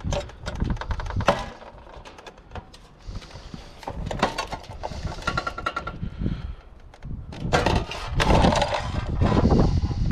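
Irregular knocks, clicks and rattles of plastic and metal parts being handled and pulled apart as a water cooler is dismantled, with a brief squeak about five seconds in.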